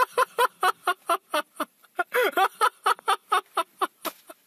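A person's voice in a quick run of short, pitched syllables, about four or five a second.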